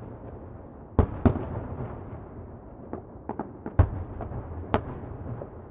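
Distant fireworks exploding: an irregular series of sharp bangs, loudest about a second in and near four seconds, each trailing off in an echoing rumble, with a brief lull before the first bang.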